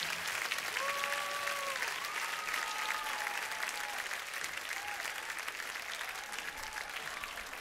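Concert audience applauding and cheering, with long high whoops over the clapping. The applause slowly dies down.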